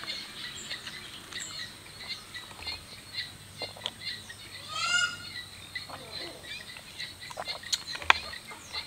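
Outdoor ambience of many short bird chirps over a steady high insect whine, with one louder rising call about five seconds in. Near the end a sharp knock as a plastic cup is set down on the table.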